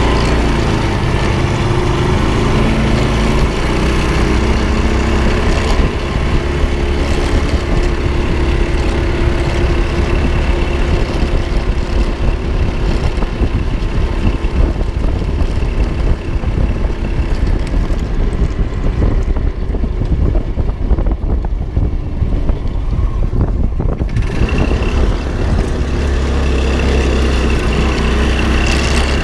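Honda GX200 single-cylinder four-stroke engine on a go-kart running steadily under way, its note shifting about three-quarters of the way through.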